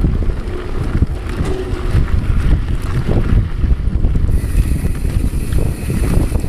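Wind buffeting a GoPro's microphone on a descending mountain bike, over a steady low rumble and jolting from the tyres rolling over dirt and gravel. A higher hiss joins about four seconds in.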